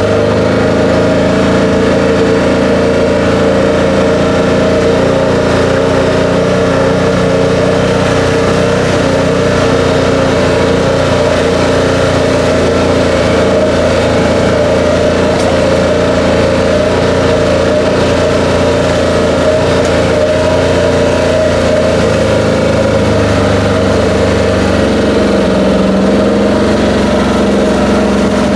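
Vehicle engine running steadily and loudly while driving, with a constant engine drone and a steady whine.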